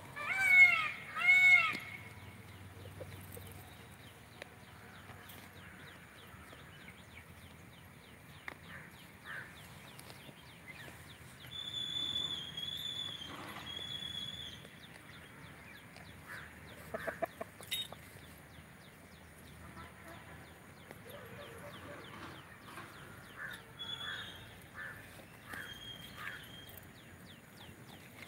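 A hen gives two loud, arching calls about a second apart near the start. Softer, scattered bird calls follow, including a high whistled call about twelve seconds in.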